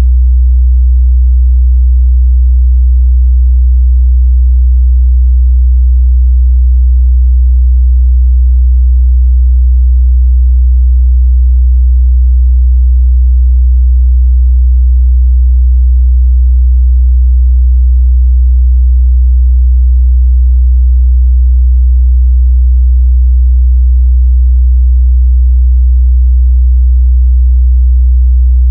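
Steady, loud 62 Hz sine-wave test tone, a low bass hum used to check speaker and headphone response.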